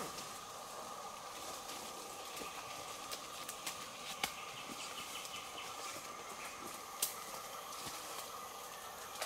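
Equatorial rainforest ambience: a steady, high insect drone with scattered sharp snaps and knocks, the loudest about four and seven seconds in.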